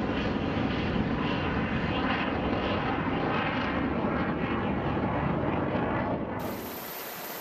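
Steady roar of a missile's rocket motor climbing away just after a vertical launch from a warship's forward launcher. It drops off abruptly near the end.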